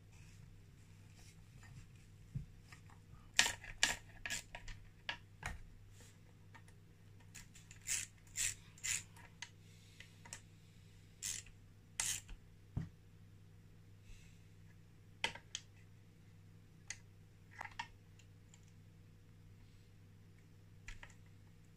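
Small metal engine parts, bolts and tools clicking and scraping as a part is fitted and bolted onto a Honda QR50 two-stroke engine casing. The sound is scattered light taps and rubs, busiest in the middle, over a steady low hum.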